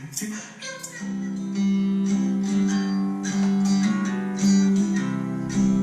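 Acoustic guitar music: a few plucked notes, then from about a second in steady strummed chords over a bass line, the instrumental lead-in to a Christmas song before the singing starts.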